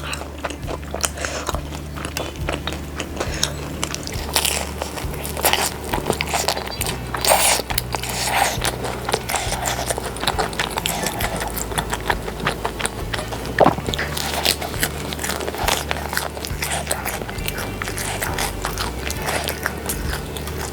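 Close-up crunching bites and chewing of crispy deep-fried food, with many sharp crackles, over quiet background music.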